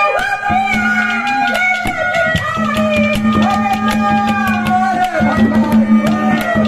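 A man singing a Haryanvi ragni through a microphone, holding long notes that bend at their ends, over a steady low drone and a quick, even hand-drum beat.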